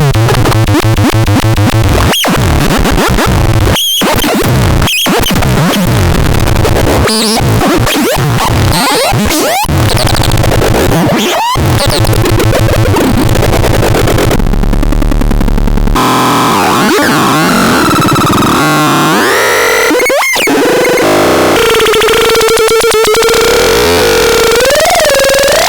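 Loud harsh electronic noise and synthesizer sound: a dense, grinding texture broken by several sudden brief cut-outs, a couple of seconds of steady hiss past the middle, then gliding synth tones with a held drone and rising-and-falling sweeps near the end.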